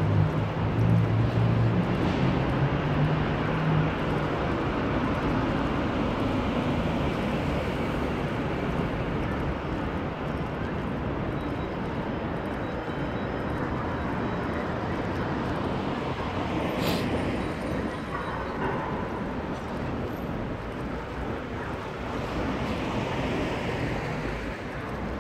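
City street traffic: steady road noise from passing cars, with a low engine drone loudest in the first few seconds as a vehicle goes by. A single brief sharp sound stands out about two-thirds of the way through.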